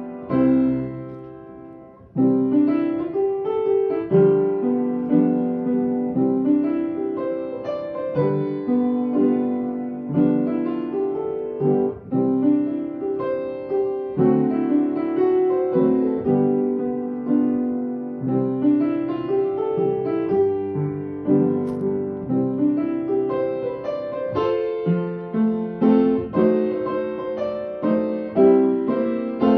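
Piano playing instrumental worship music, held chords changing every second or two.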